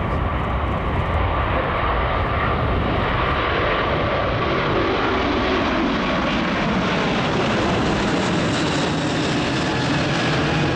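An Airbus A380's four jet engines running at takeoff thrust as the airliner lifts off and climbs away: a loud, steady rush of engine noise with a constant whine through it.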